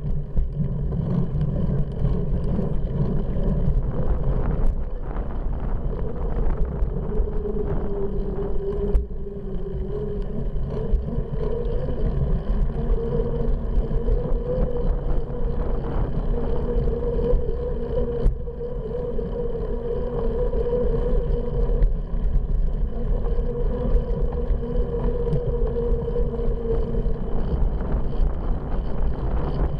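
Riding noise of a cyclocross bike rolling along a paved path, picked up by a handlebar-front camera: a steady low rumble of tyres and wind, with a hum that wavers slightly in pitch and occasional small rattles and clicks.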